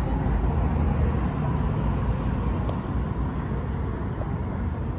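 Road traffic noise: a steady, low rumble of passing vehicles that eases off slightly toward the end.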